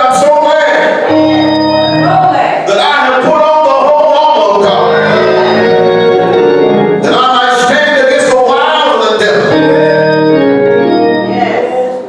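Church organ playing sustained, held chords that shift every second or two, with a voice rising and wavering over it at times.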